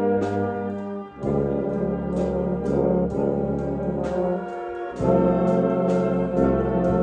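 Student concert band playing held brass chords over a low tuba bass line, with a light beat about twice a second. The chords change about a second in and again about five seconds in.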